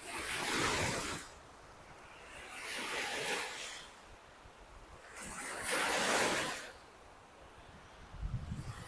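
Small lake waves breaking and washing up a beach, three in turn about two and a half seconds apart, each a short rushing wash. A low rumble comes in near the end.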